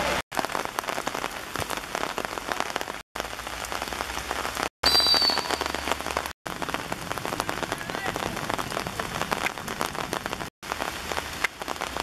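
Heavy rain falling on an outdoor hard court: a steady hiss thick with small drop ticks, which breaks off for an instant several times. About five seconds in, a short high whistle blast, most likely the referee's, is the loudest sound.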